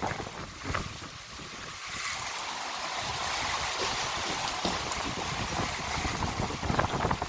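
Heavy rain pouring steadily, a hiss that fills in about two seconds in, with wind buffeting the microphone.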